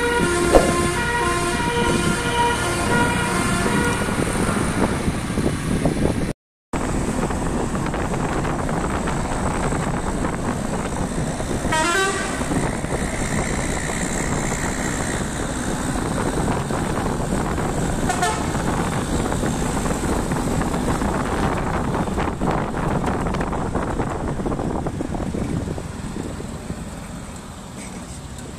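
Basuri 'telolet' musical air horn on a car playing a quick tune of stepped notes for about five seconds. After a break there is a steady noisy din with two short sliding tones, fading near the end.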